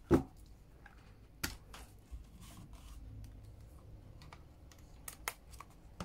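Hard plastic knocks and clicks as a drone remote controller and battery charging hub are handled, with faint rustling between. The loudest knock comes right at the start, a sharp click about a second and a half in, and two more clicks close together near the end.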